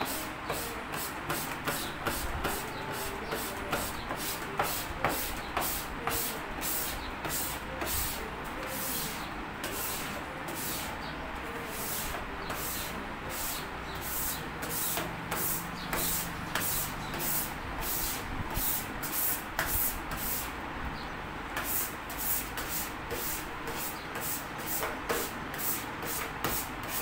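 Hand squeegee rubbing vinyl film down onto a sign board, a quick run of swishing strokes, about two to three a second, smoothing the vinyl flat.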